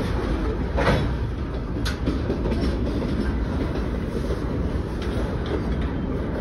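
Freight train cars, covered hoppers followed by a tank car, rolling past on the rails: a steady low rumble with sharp wheel clacks about one and two seconds in.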